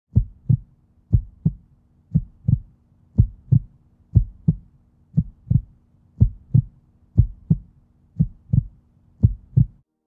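Heartbeat: a steady lub-dub of paired low thumps about once a second, ten beats in all, over a faint steady hum, stopping just before the end.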